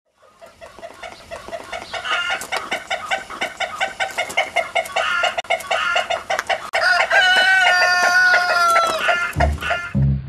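A flock of chickens clucking, fading in over the first few seconds, with a rooster crowing once in a long call of about two seconds, starting about seven seconds in. Plucked double bass notes come in near the end.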